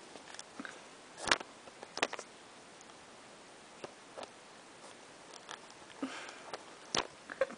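A cat biting and gnawing on the stick of a wand toy up close: scattered sharp clicks and taps, the loudest about a second in, at two seconds and near the end, with softer rustling between.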